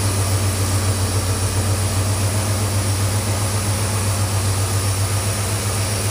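Ford 460 big-block V8 with FiTech fuel injection idling steadily, a low, even hum with no change in speed.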